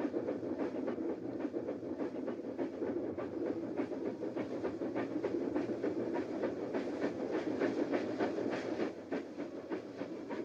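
Dubbed-in steam train sound effect: a train running with a steady rumble and rapid repeated clicks.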